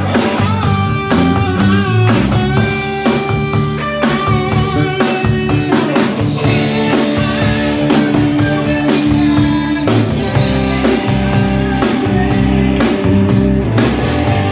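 Live band playing a song on electric guitar and drums, loud, with a steady beat.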